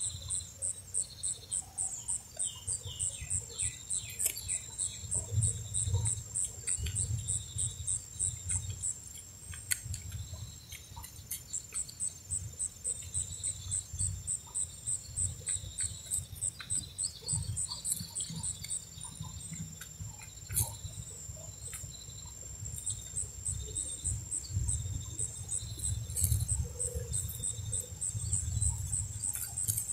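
An insect chirping in a steady, high-pitched pulse, about three chirps a second, breaking off twice and starting again, with soft low thumps underneath.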